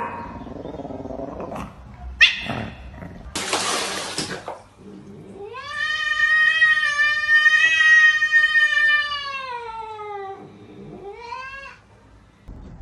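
Cat caterwauling: one long drawn-out yowl of about five seconds that rises and then slowly sinks in pitch, followed by a shorter rising cry. Earlier come a few short cries and a brief burst of hiss-like noise.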